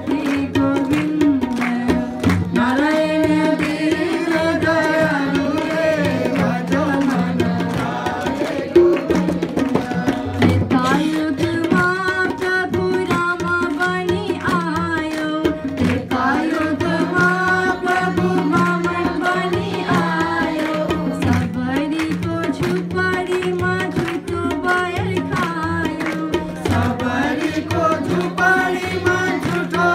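A woman's voice singing a Hindu devotional bhajan over a harmonium's held chords, with two sets of tabla keeping a steady rhythmic accompaniment.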